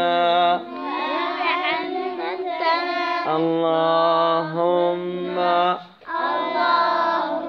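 Children and a woman singing a slow Arabic supplication for knowledge in long, drawn-out held notes, with a brief break between phrases about six seconds in.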